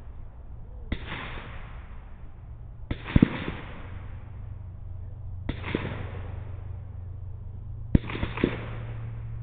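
Gunfire from several shooters: about eight shots in four quick clusters of one to three, roughly two and a half seconds apart, each with a short echoing tail, over a steady low hum.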